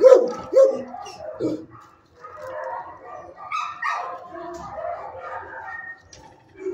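Dogs barking in a shelter kennel block: a few loud barks in the first second and a half, then a steady din of many dogs barking and yipping.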